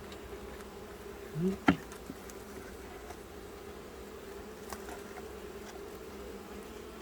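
Honeybees humming steadily around an open hive, with a single sharp knock a little under two seconds in.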